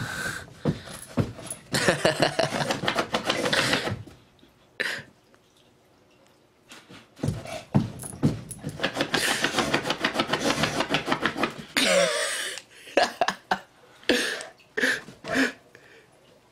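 A bulldog hunting over the carpet in two long runs of rapid snuffling and scrabbling, with a short falling grunt or whine about twelve seconds in and a few brief snorts near the end.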